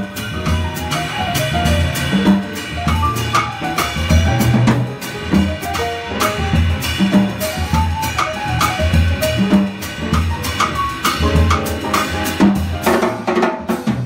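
Live jazz piano trio playing: acoustic piano lines over upright double bass notes, with a drum kit played with sticks, its cymbals and drums struck throughout and standing out in the mix.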